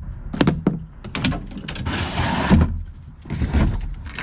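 Gear being loaded into a pickup truck bed: a series of thuds and knocks, with a scraping slide lasting about a second around two seconds in.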